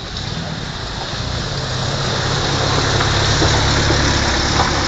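A motor vehicle's engine running and getting louder over a few seconds, over a steady rushing noise.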